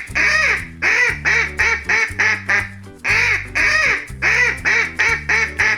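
Duck quacking in two quick runs of short quacks, about four a second, over a steady backing of children's music.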